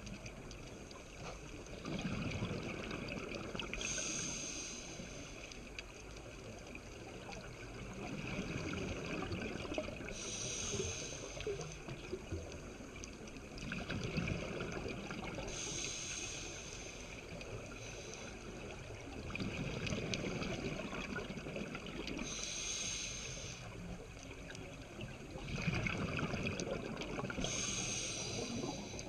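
Scuba diver breathing through a regulator underwater, in a slow cycle of about one breath every six seconds: a hissing inhale through the demand valve, then a low bubbling rush of exhaled air.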